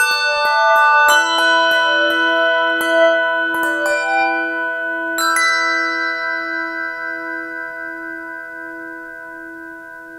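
Brass handbells ringing the closing chords of a piece: several notes struck over the first few seconds, a last chord about five seconds in, then the bells ring on and slowly fade away.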